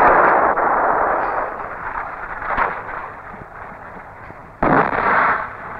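Shell explosions on an old film soundtrack: the noisy roar of one blast dies away over about three seconds, then another blast hits suddenly about four and a half seconds in.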